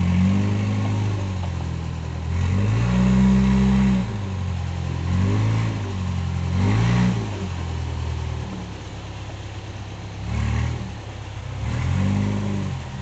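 Motorboat engine running, with the throttle opened and closed several times so that the engine note rises and falls in short swells.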